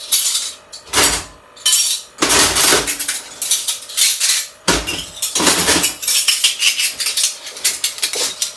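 Metal spoons clinking and clattering against each other as they are handled and sorted, a run of clinks with short pauses between.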